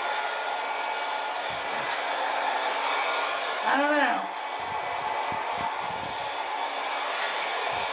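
Hair dryer running steadily on its low setting, blowing air over wet pour paint. A short pitched sound that rises and then falls cuts in briefly about halfway through.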